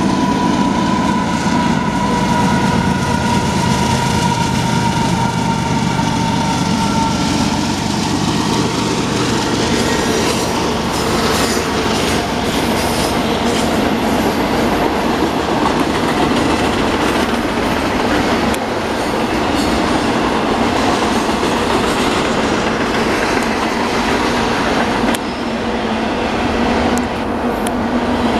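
Union Pacific double-stack intermodal freight train passing: the diesel locomotives' drone slowly falls in pitch over the first several seconds, then gives way to the steady rumble and clatter of the container cars rolling over the rails.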